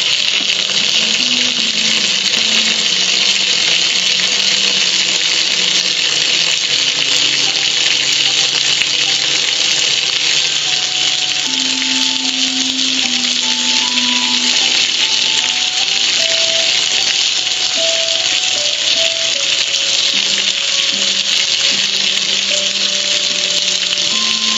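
Steady hiss of soapy water spraying and cascading down over a gas grill's lid and control panel. A slow, simple melody plays faintly underneath.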